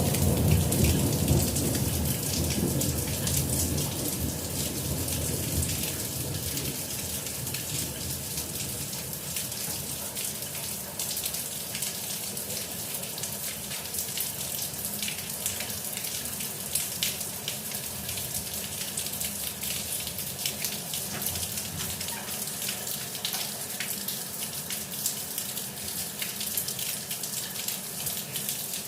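Steady rain falling, with many separate drops striking close by. A low thunder rumble dies away over the first few seconds.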